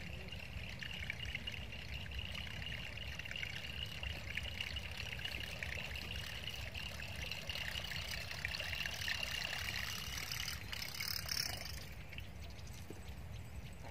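A noisy blade buzzbait being reeled across the water's surface, a steady rapid churning and gurgling of its knocking blade. About eleven seconds in the churning stops and a short rougher burst follows.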